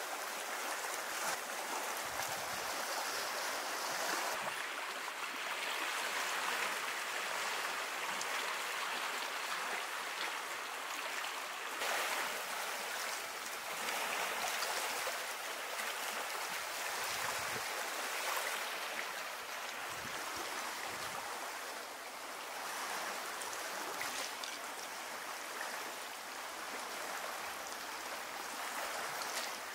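Steady rushing, splashing water noise.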